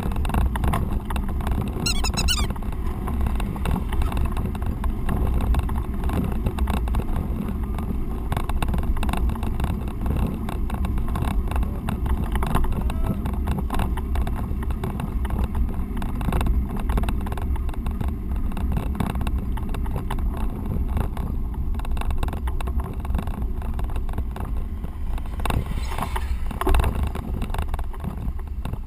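Steady low rumble of a loaded touring bicycle rolling on a paved road: tyre noise and frame vibration picked up by a camera in a closed case mounted on the bike. A brief high chirp about two seconds in.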